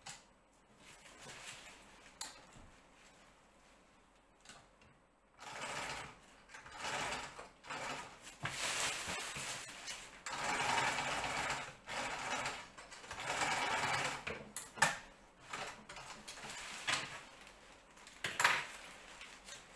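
Home sewing machine stitching through layers of kite fabric in several short runs, each a second or two long with brief stops between, starting about five seconds in. A sharp click comes in the middle, and lighter clicks and fabric handling follow near the end.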